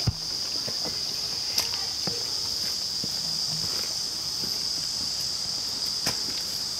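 Steady high-pitched insect chorus, with a hiker's footsteps scuffing and knocking on rock. The sharpest knocks come right at the start, about one and a half seconds in and about six seconds in.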